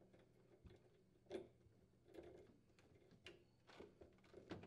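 Near silence with a few faint clicks and rustles of a refrigerator door's wire harness and plastic water line being handled and fed through the hole in the lower door hinge.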